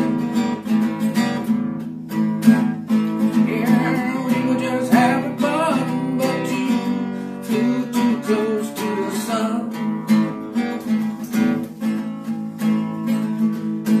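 Acoustic guitar strummed steadily through chords in an instrumental break between the song's sung lines.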